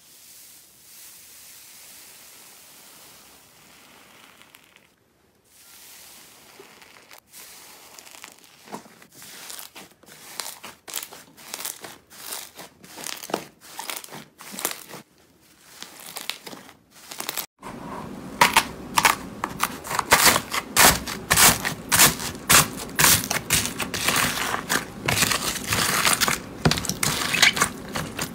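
Foamy slime pressed and squeezed by hand: a soft hiss at first, then crackling and crisp popping that grows denser. About two-thirds in, a much louder, denser run of sharp clicks and squishy pops as fluffy slime is kneaded.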